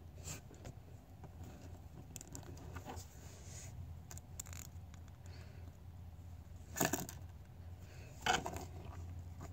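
Small plastic Mega Bloks action figure being handled: faint clicks and taps of its jointed limbs and hands on the plastic, with two louder knocks about seven and eight seconds in as the figure is set down on the table, over a low steady hum.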